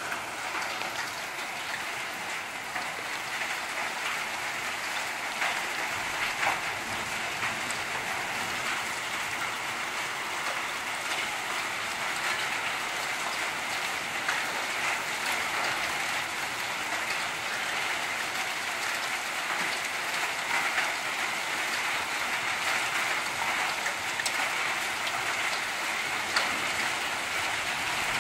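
Heavy rain pouring down and pattering on hard ground and surfaces, a steady dense hiss with many scattered sharp taps from individual drops.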